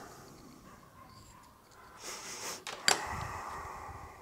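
Quiet handling noise at a workbench: a short hiss about two seconds in, then a single sharp click, followed by faint low rumbling.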